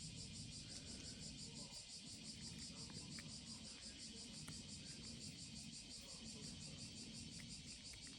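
Faint insect chirping, a steady high-pitched pulsing at about five pulses a second, over a low background rumble.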